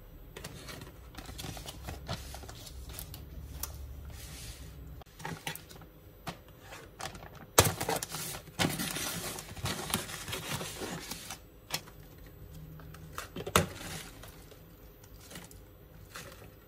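Plastic clamshell tray of baby spinach being handled and opened: clicking and crackling plastic, with a loud stretch of crinkling from about eight seconds in that lasts some three seconds, then softer rustling as the spinach leaves are lifted out.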